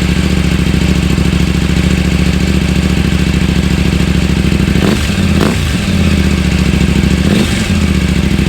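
KTM 790 Adventure R Rally's parallel-twin engine idling just after a start, breathing through stock headers, a catless link pipe and an Akrapovic slip-on with the stock baffle in. The throttle is blipped twice about five seconds in and once more near the end, each rev rising and dropping straight back to idle.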